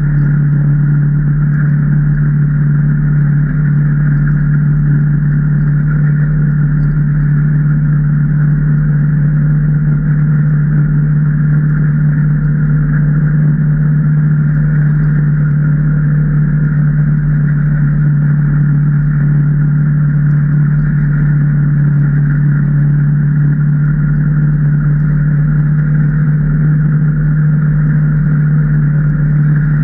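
2019 Can-Am Maverick Trail 800 side-by-side's Rotax V-twin engine running at a steady, unchanging speed: a constant loud drone with no rise or fall in pitch.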